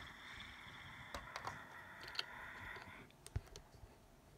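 Light plastic clicks of Lego minifigures and bricks knocking against the board as they are moved by hand, several scattered clicks. A faint steady higher-pitched sound runs underneath for about the first three seconds, then cuts off.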